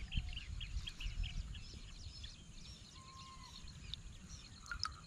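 Small birds chirping in quick runs of short, high calls, thinning out after the first second or so, over a low steady rumble.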